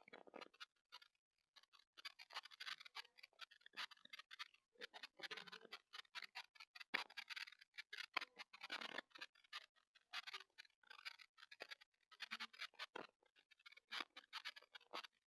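Faint, irregular crackling and scratchy noise from the TP-Link Tapo C225 indoor camera's microphone in a silent room, coming in uneven spurts with short gaps. It is noise from the camera's own audio, a sign of its poor audio quality.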